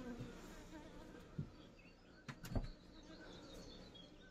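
Asian honeybees (Apis cerana indica) buzzing faintly around a freshly closed hive, with a few knocks about one and a half and two and a half seconds in as the hive lid is settled and weighted with a stone.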